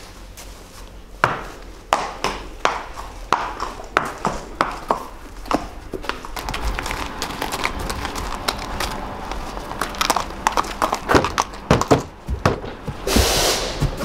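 Horse's hooves clopping at a walk as it is led, a string of sharp knocks coming one to two a second, with a brief rushing noise near the end.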